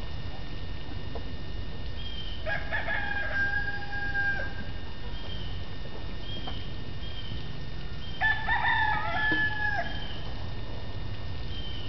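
A rooster crowing twice, each crow about two seconds long ending in a held note, with faint high chirps between the crows.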